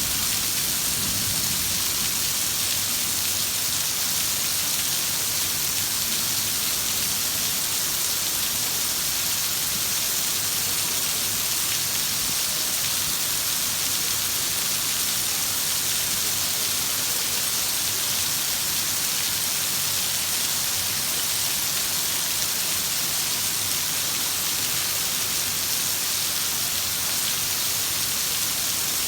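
Heavy rain falling steadily, an even hiss with no breaks, with a faint low rumble in the first couple of seconds.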